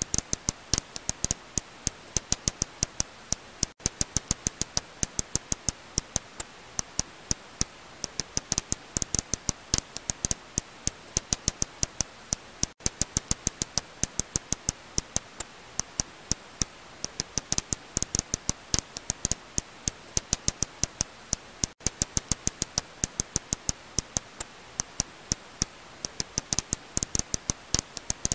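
Serotine bat echolocation calls made audible, heard as a rapid, irregular run of sharp clicks, several a second, over a steady hiss, with three very brief dropouts.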